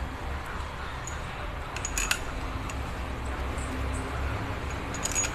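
Light metallic clinks of a HOWO engine connecting rod and its steel bearing shell being handled and seated in the big end, a short cluster about two seconds in and another near the end, over a steady low rumble.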